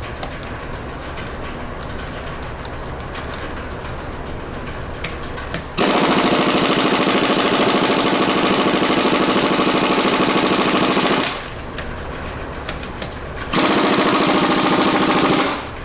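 Pneumatic impact wrench hammering on a car's wheel lug nuts in two bursts, a long one of about five seconds and a shorter one near the end, with the rapid rattle of the hammer. The nuts are seized on tight and do not come loose.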